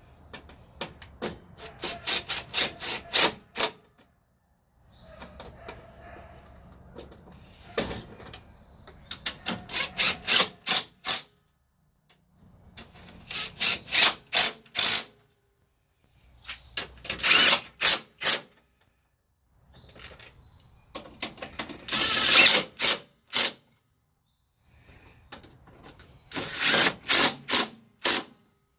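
Impact gun with a 10 mm socket running bolts down in about six short bursts of rapid hammering, each a second or two long with pauses between.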